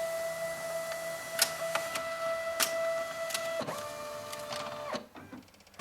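Samsung SCX-4521F multifunction laser printer's scanner mechanism running with a steady motor whine and a few sharp clicks. About three and a half seconds in the whine changes to a different pitch for about a second, then the motor stops.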